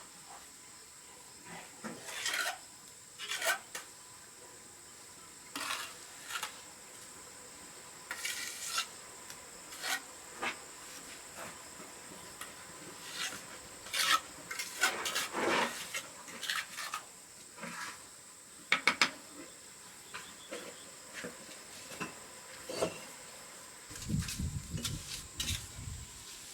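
Scattered scrapes and clinks of a hard object on a hard surface, with a few low thuds near the end.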